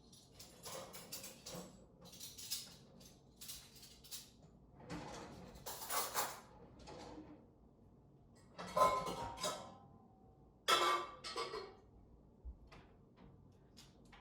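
Dishes and bowls clattering as they are stacked and put away, in several separate bursts of clinking, with a brief ringing tone from one of them about nine seconds in.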